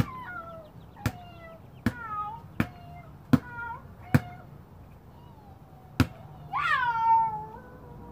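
A basketball bouncing on a concrete driveway seven times, most bounces answered by a short falling meow from a child imitating a cat. A longer, louder meow comes about six and a half seconds in.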